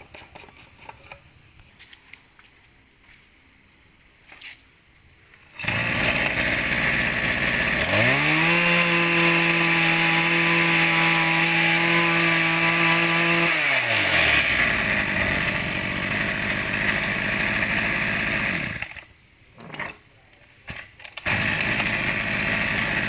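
Kubota 26cc two-stroke brush-cutter engine (34 mm bore) starting about five and a half seconds in and running. It is revved up for about five seconds, its note rising and holding high, then drops back. Near the end it falls quiet for about two seconds and runs again.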